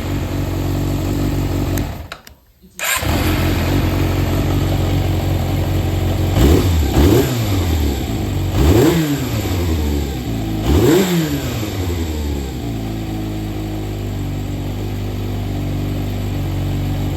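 Yamaha XJR400 air-cooled inline-four engine running: it cuts out briefly about two seconds in and starts again, is blipped up and down four times, then settles to a steady idle. The seller describes it as running without abnormal noise.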